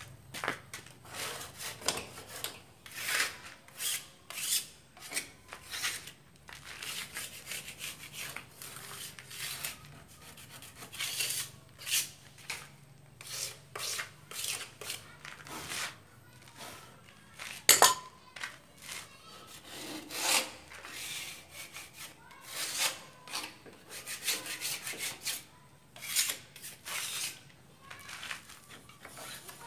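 Hand scraper scraping along a wooden window frame in short, irregular strokes, about one or two a second, cleaning dirt off the frame before it is sanded. One sharp knock about two-thirds of the way through.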